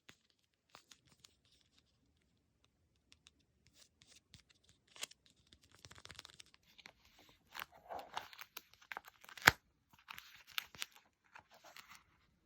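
Paper being handled and torn: after about five seconds of near silence, scattered soft rustles and short tears with light clicks, and one sharper click a little past the middle.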